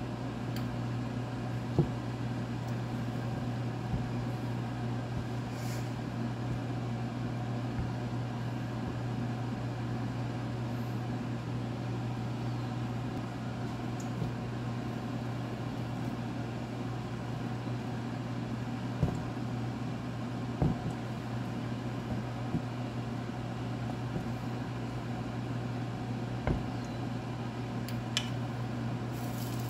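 A steady low mechanical hum, like a running fan or motor, with a few faint ticks scattered through.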